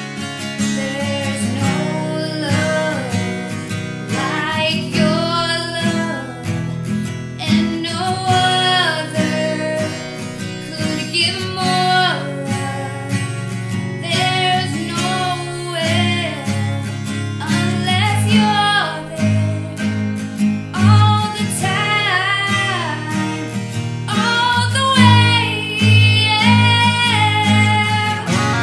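A song: a woman singing over strummed acoustic guitar.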